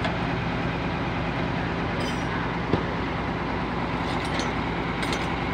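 A vehicle engine idling steadily, a low even hum. There is a single knock almost three seconds in, and a few light metal clinks near the end.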